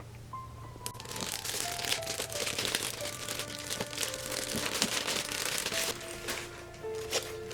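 Soft background music with steady held notes, over crinkling and rustling of packaging being handled from about one second in until about six seconds in.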